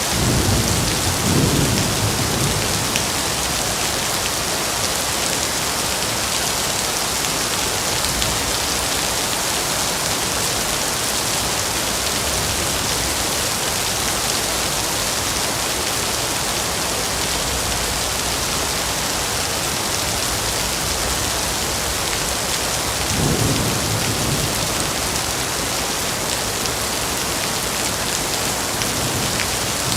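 Steady rain falling on a forest, with two low rumbles of thunder: one right at the start and another about three-quarters of the way through.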